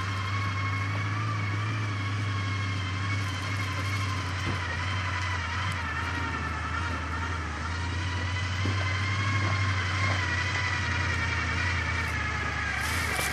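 Engine of an off-road 4x4 running at a slow, steady crawl through brush: a steady low drone with a thin whine above it.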